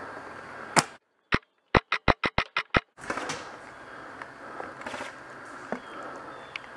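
Airsoft gun firing a rapid string of about nine sharp shots in two seconds, after one loud crack just before it. Then rustling and scattered light knocks as the player moves over leaf litter.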